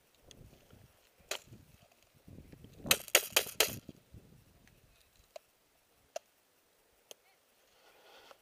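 Airsoft guns firing in an outdoor game: one sharp crack, then a quick string of about five shots a little after the middle, then a few faint single cracks near the end.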